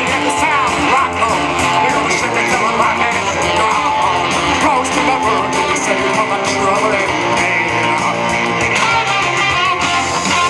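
Loud rock music led by strummed guitar.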